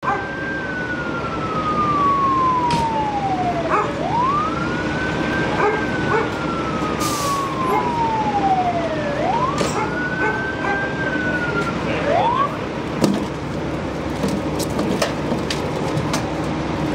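Emergency vehicle siren wailing, with a slow falling pitch and a quick rise about every five seconds. It cuts off about twelve seconds in, and a few short knocks follow.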